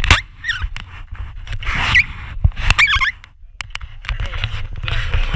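Skis scraping and hissing across snow in repeated surges through the turns, over a low rumble of wind on the microphone. A few short, wavering high squeals cut in along the way.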